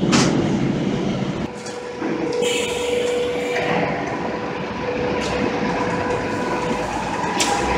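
Belt conveyor and concrete plant machinery running steadily, with a steady whine and a few brief clanks.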